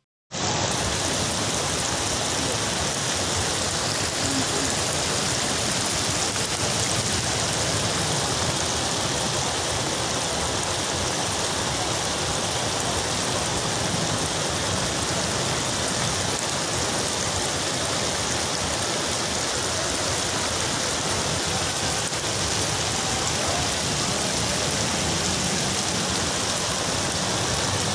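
Heavy monsoon downpour: a dense, steady, even hiss of rain pouring onto waterlogged ground.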